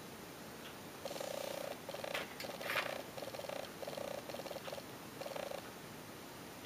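Makeup brush rubbing back and forth over the eyelid to blend black eyeshadow into the crease: about seven short, grainy rubbing strokes in an even rhythm starting about a second in, with a couple of sharper scratches in the middle.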